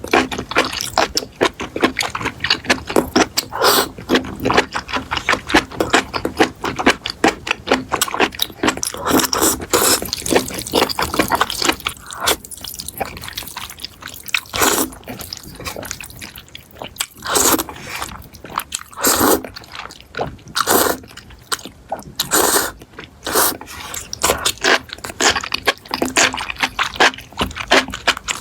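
Close-miked mukbang eating sounds: chewing and mouth smacks, a dense run of quick irregular clicks with a quieter spell about halfway through.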